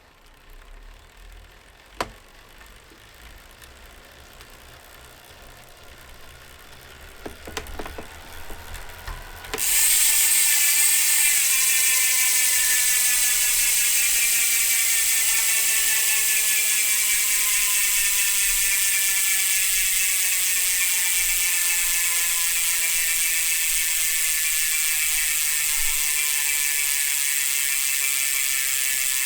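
Hope Pro 4 rear hub's ratchet freewheel: after a few faint clicks and knocks, the wheel is spun about nine and a half seconds in and the pawls set up a sudden loud, high, dense buzz that slowly drops in pitch as the wheel coasts down.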